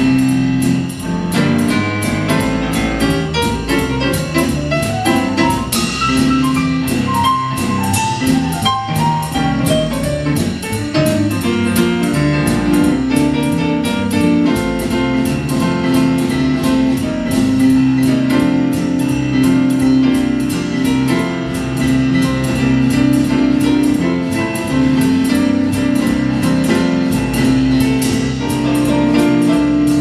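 Jazz trio playing an instrumental passage: Yamaha grand piano with bass and drums, over a steady, evenly spaced cymbal rhythm.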